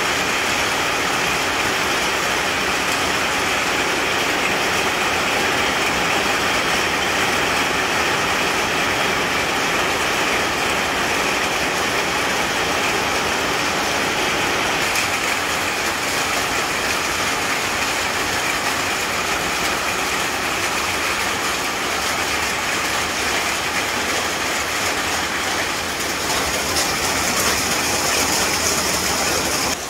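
Heavy tropical rain falling steadily on trees, ground and roofs, an even hiss that brightens somewhat near the end.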